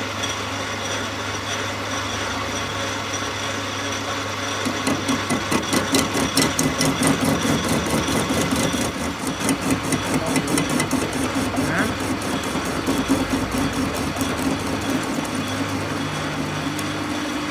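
Metal lathe running with its chuck spinning: a steady motor hum. From about five seconds in, a fast, even pulsing joins it as the cutting tool works the end of the spinning metal bar.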